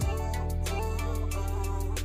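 Background music: an instrumental stretch of a pop song, with a held bass note under a steady beat.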